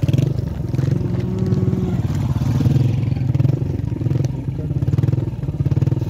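Heavy motorcycle's engine running steadily under way, a low, even engine note with rapid firing pulses.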